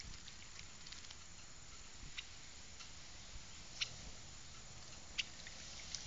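Small bird bathing in a birdbath: a handful of short, sharp high ticks, loudest about four and five seconds in, over a faint steady hiss.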